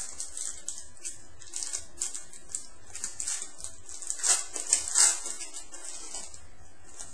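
Trading card pack wrapper being torn open and handled, a run of sharp crinkling crackles that is loudest about four to five seconds in.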